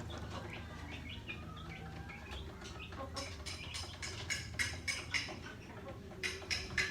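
Faint chirping of birds, many short high calls repeating, with scattered short clicks and rustles in the second half.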